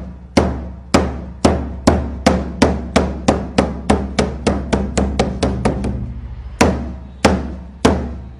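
Large pagoda drum struck over and over with a long wooden beater: each stroke is a sharp crack with a deep boom that rings on between strokes. The strokes quicken from about two a second to about three or four a second and grow weaker, then after a short pause about six seconds in, slower, stronger strokes resume.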